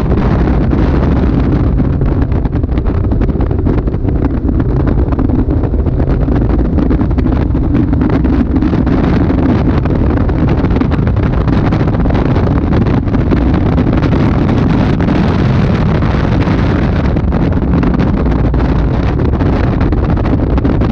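Caterham Super 7 sports car driving at speed on a track, its engine running under load, heard from the open cockpit with heavy wind buffeting on the microphone.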